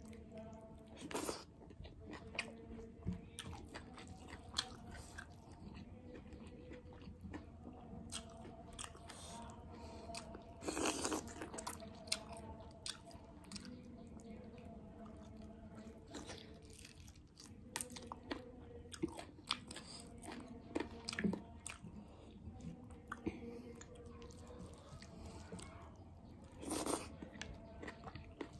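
Close-up eating sounds: a person chewing mouthfuls of dhido and mutton curry eaten by hand, with many small clicks and three louder sounds of about a second each, near the start, in the middle and near the end.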